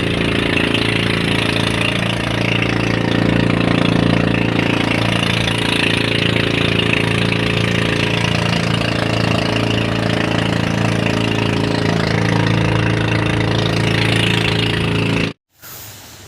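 An engine running at a steady speed, an even hum that holds one pitch throughout. It cuts off abruptly near the end, leaving a much quieter outdoor background.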